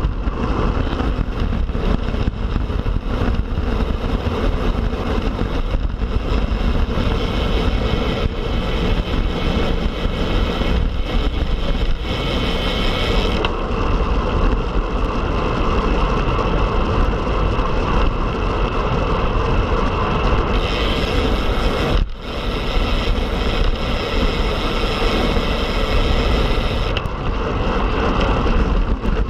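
Steady rush of wind buffeting the microphone, with road noise, from a Specialized Tarmac Sport road bike ridden at speed. The hiss grows brighter for stretches of several seconds and drops out briefly once.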